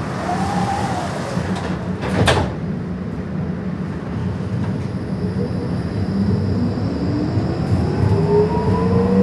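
Interior of an electric tram: the doors slide shut with a single thud about two seconds in over a steady low hum. From about five seconds the traction motors start a whine that climbs steadily in pitch as the tram begins to accelerate.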